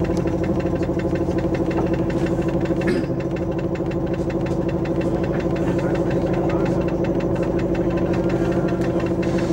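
A vehicle's engine idling steadily, with an even, rapid pulse.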